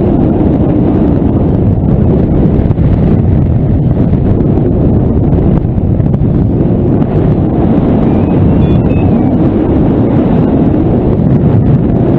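Steady rush of wind over the microphone from the airflow of a paraglider in flight, a deep buffeting noise with no pitch to it. A few faint short high beeps come through about two-thirds of the way in.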